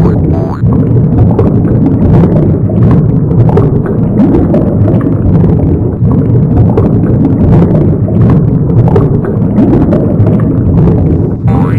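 Cartoon animation sound effects: a loud, continuous rumbling clatter, thick with knocks and thuds. A springy boing-like glide sounds just after the start and again near the end.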